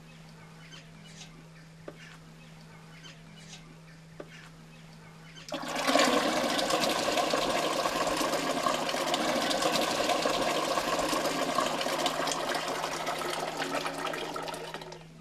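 Milk being poured from a jug into an aluminium cheese pot: a steady splashing pour that starts suddenly about five seconds in and lasts about ten seconds, fading near the end. Before it, only faint clicks and small knocks.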